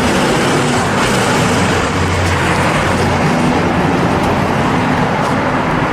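A bus engine running with road and traffic noise: a steady, loud rumble with a low hum throughout.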